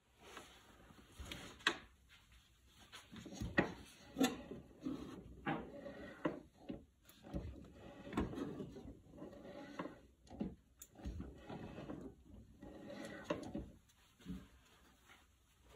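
Quiet, irregular knocks, clicks and rubbing: handling noise, with no steady machine sound.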